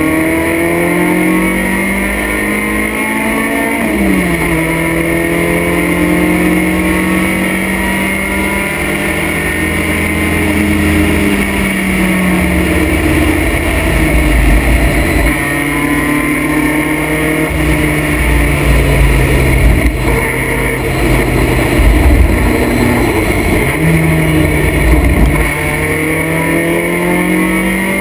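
Vintage race car's engine heard from inside the open cockpit under racing load, the pitch climbing through the revs and dropping sharply at a gear change about four seconds in. It eases off around the middle for a corner and again shortly before the end, then builds once more.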